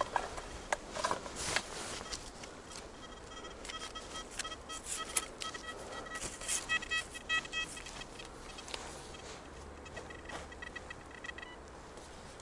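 Metal detector (XP Deus) sounding a run of short, stuttering beep tones as the coil sweeps over targets, starting a couple of seconds in and stopping shortly before the end, amid clicks and rustles of handling in the ground.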